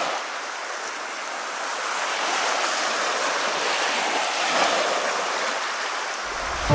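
Small waves breaking and washing up a sandy shore: a steady hiss of surf that swells a little in the middle, with no low rumble.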